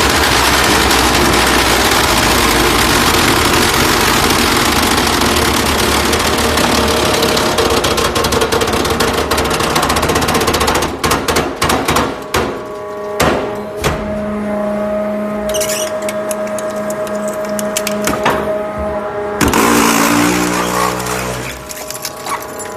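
Hydraulic scrap metal baler compressing scrap metal. Loud, dense crushing and grinding noise for about the first ten seconds, then the steady hum of the hydraulic pumps under scattered sharp cracks and clanks of metal, and a brief loud surge of noise near the end.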